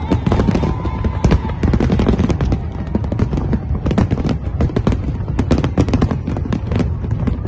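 Aerial fireworks display: a dense, irregular barrage of shell bursts, many sharp bangs and cracks in quick succession over a continuous low rumble.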